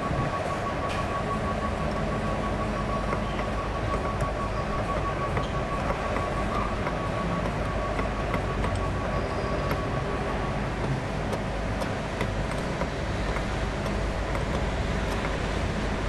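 Steady rumble of heavy machinery engines running, with a steady high whine that stops about two-thirds of the way through and a few light metallic clinks of hand tools on pump parts.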